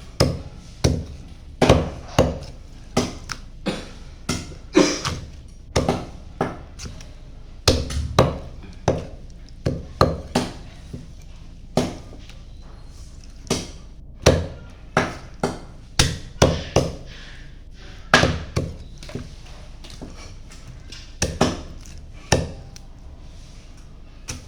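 A heavy knife chopping through chicken: a string of sharp, irregular chops, roughly one or two a second, with a few short pauses between runs of strokes.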